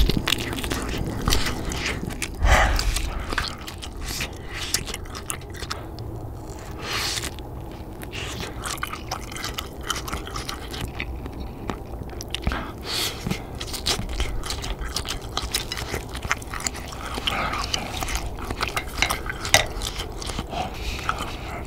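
A person biting and chewing soft, hot fish cake off wooden skewers: irregular wet mouth clicks and chewing over a steady low rumble.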